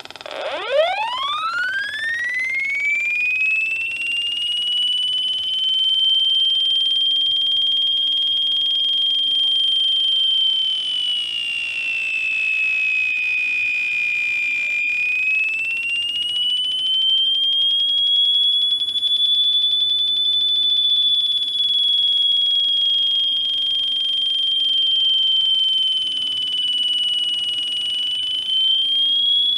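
Electronic siren tone from the speaker of a RadioShack Electronics Learning Lab, driven by a 555 timer and 4046 chip circuit. On power-up it sweeps quickly from a low pitch to a high whistle, then holds that whistle, sinking a little lower near the middle and rising back.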